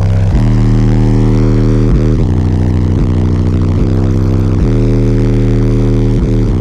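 Twelve Otis Designs 15-inch subwoofers in a sixth-order bandpass enclosure playing loud, deep sustained bass notes. The note changes every second or two, with brief dips between notes.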